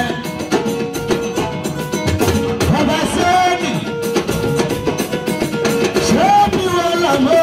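A man singing into a microphone over amplified live music with drums and percussion, his voice gliding between held notes.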